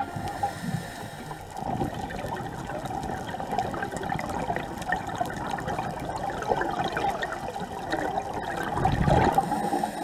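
Scuba exhaust bubbles rising and bubbling past a GoPro in its underwater housing, with a louder rush of bubbles about nine seconds in.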